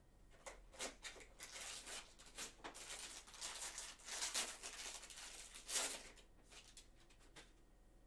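Hands opening a small cardboard trading-card box and tearing open the wrapped card pack inside: a run of faint scraping, crinkling and tearing rustles, sharpest about four and a half and six seconds in, dying away near the end.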